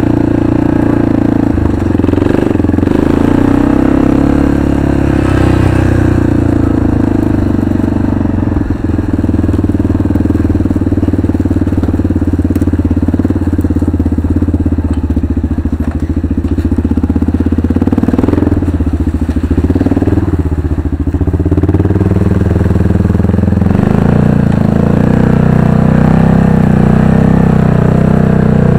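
Arctic Cat 500 ATV's single-cylinder four-stroke engine running under throttle while riding, heard close up. The pitch sags briefly about two-thirds of the way through and then picks up again.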